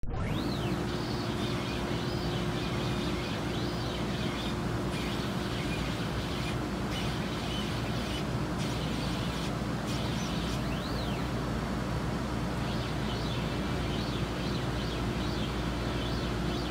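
Epilog Fusion M2 laser cutter running: a steady machine hum and air rush with one constant low tone, while the head's motion motors whine up and down in pitch, again and again, as the head traces circles.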